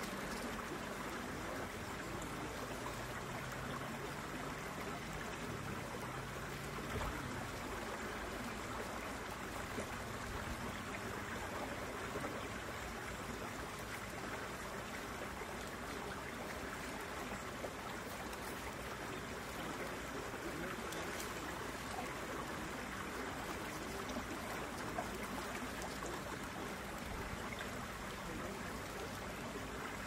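Steady rushing of flowing water, even and unbroken. About three seconds in, a faint low hum wavers for a few seconds.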